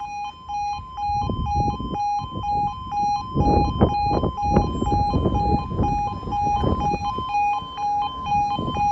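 Level crossing audible warning: a loud two-tone alarm stepping rapidly back and forth between a lower and a higher note, sounding while the barriers are down. Irregular low rumbling noise rises and falls under it, loudest about three and a half seconds in.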